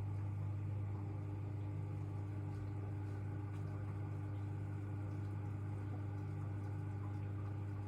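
AEG LR8FL160EX washing machine running with a steady, even hum at one constant pitch that cuts off sharply at the end, as one stage of its wash cycle stops.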